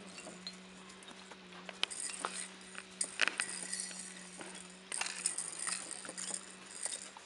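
Wolfdog puppies scuffling on dry pine needles and mouthing hanging plastic toys: scattered light clicks, clinks and rattles over a faint steady hum.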